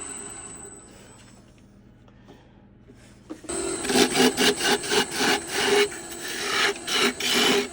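A steady machine whine fades away over the first second and a half. After a short lull, a tool rasps across wood in quick back-and-forth strokes, about two a second.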